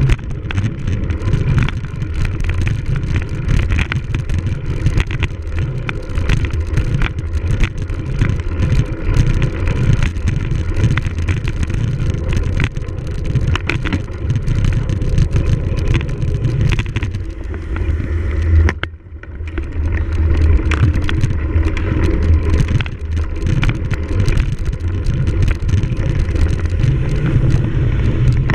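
A cyclocross bike being ridden hard over rough ground: wind rumbling on the microphone, with constant clattering knocks from the bike over bumps. There is a brief lull about two-thirds of the way through.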